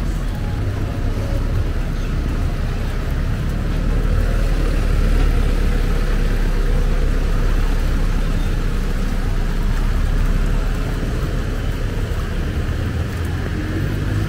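Close street traffic on a wet road: motorcycle tricycle and jeepney engines running, a steady low rumble that swells somewhat in the middle.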